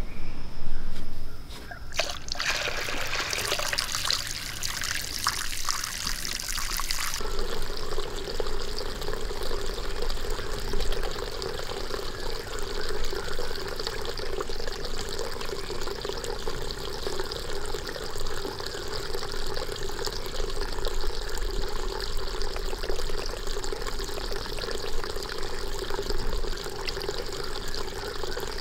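Water trickling steadily from a small pipe into a terracotta bowl and spilling over its lip into a shallow pond. It is louder in the first second or so, and brighter and hissier until about seven seconds in, then settles into an even, lower trickle.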